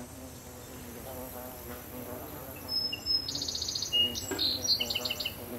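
Honeybees buzzing around the hives: a steady hum. A run of high chirps comes in the second half and is the loudest sound.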